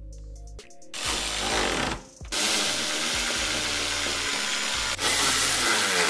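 Cordless electric ratchet running in bursts as it tightens the headlight's mounting bolts. A short run comes about a second in, then a longer run from just after two seconds, with a brief break near five seconds.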